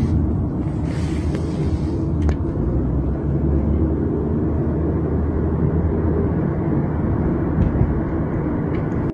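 Car cabin noise while driving: a steady low rumble of tyres and engine heard from inside the car.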